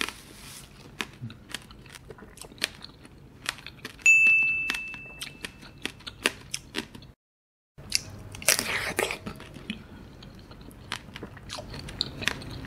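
Close-up crunching and chewing of a tanghulu-candied mandarin: the glassy sugar shell crackles in many sharp snaps between bites of the juicy segments. A single chime rings out about four seconds in and fades, and the sound drops out completely for a moment near seven seconds.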